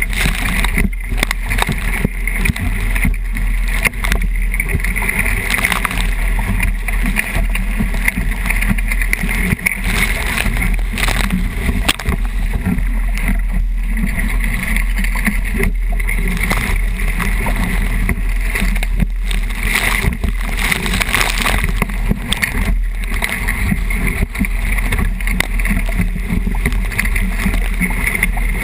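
Wind buffeting the microphone of a deck-mounted camera on a 29erXX skiff sailing fast in strong wind, over steady rushing water and spray along the hull, with frequent irregular knocks and slaps.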